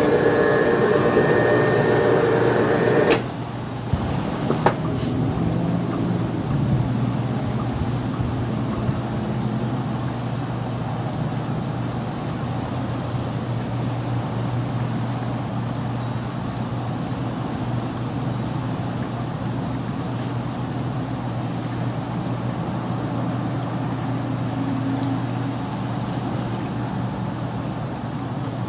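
Steady, high-pitched insect drone of a summer day, with a low steady hum underneath. For the first three seconds a louder droning sound lies over it and cuts off suddenly.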